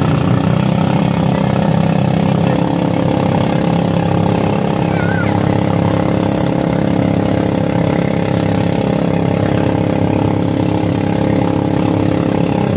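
Boat engine running steadily under way, its pitch holding even throughout.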